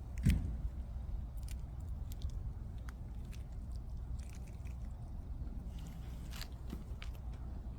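A stray cat chewing and biting its food, with scattered small crunching clicks. A single louder knock comes just after the start.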